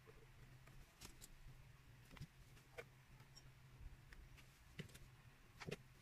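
Near silence: a faint low hum with a few soft, scattered taps and clicks from hands handling a small wooden craft house and pressing decorations onto it.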